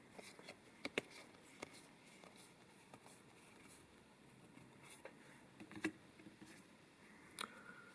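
Faint handling of Magic: The Gathering trading cards: scattered soft clicks and slides as cards are flipped through, the clearest about a second in and near six seconds.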